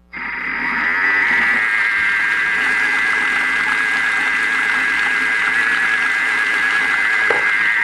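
Thermomix food processor's motor blending a garlic mayonnaise (aioli), spinning up over about the first second and then running at a steady whine. This is the re-mixing of the aioli after the bowl's sides were scraped down.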